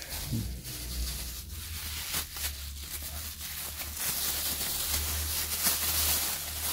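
Thin plastic bags crinkling and rustling as they are handled and pulled out close to the microphone, in irregular crackles that grow busier about four seconds in.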